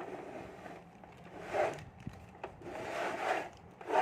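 Hard plastic toy parts being handled and fitted together, rubbing and scraping in a few short bursts.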